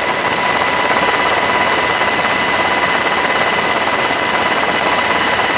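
Helicopter engine and rotor noise picked up aboard the camera aircraft: a steady, loud rushing noise with a constant high whine running through it.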